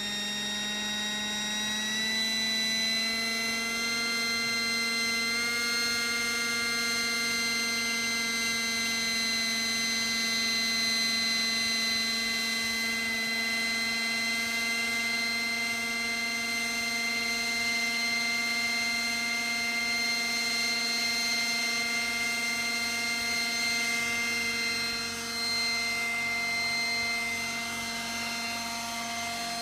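Electric RC model Gazelle helicopter with a fenestron tail spooling up: a steady motor and rotor whine that climbs in pitch in a few steps over the first several seconds, then holds level while it runs up and lifts into a low hover.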